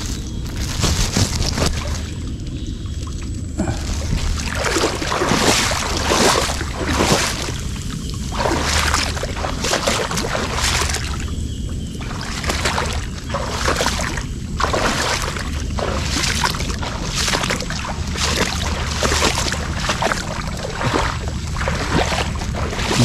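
Water splashing and sloshing around a small boat moving through a mangrove creek, in repeated swishes about once a second over a low steady rumble.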